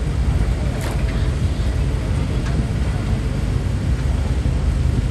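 Diesel engine of a large Ponsse forestry forwarder running steadily with a low rumble, with a short click about a second in.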